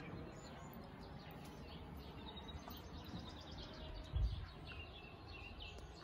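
Outdoor ambience: a steady low background hiss with faint, high bird chirps coming in quick series. There is a brief low bump about four seconds in.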